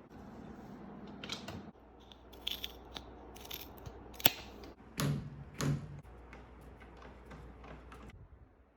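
A run of sharp clicks and knocks from handling work on a wooden chair, with two heavier knocks about five seconds in, over a low steady hum.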